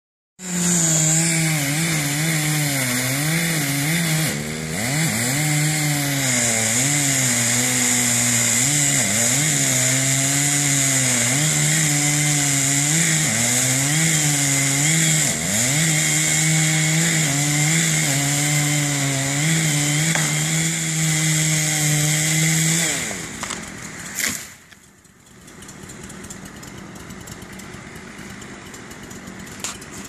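Chainsaw running in a cut, its engine pitch repeatedly sagging under load and picking back up, until it stops about 23 seconds in. A short sharp thump follows about a second later.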